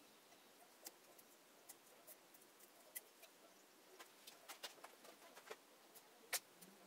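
Scattered light clicks and taps over near silence, the loudest one near the end: hands and a small metal tool handling a wooden hollow form on a lathe that is not running.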